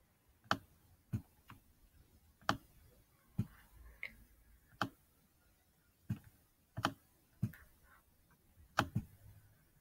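Faint computer mouse button clicks, about a dozen at irregular spacing, some in quick pairs, as letters are drawn stroke by stroke in a drawing tool.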